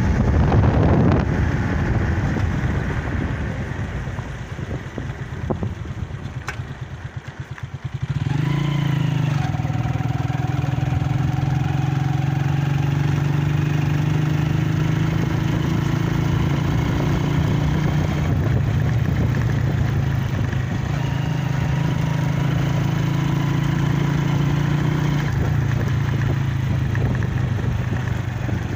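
A motor vehicle's engine running. A noisy rush fades over the first several seconds into slowing pulses, then about eight seconds in a steady, even engine hum takes over and holds.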